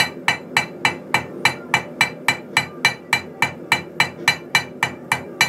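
Hand hammer striking 1/8-inch flat stock on an anvil, flaring out the end of the bar. The blows fall evenly, about four a second, each with a brief metallic ring.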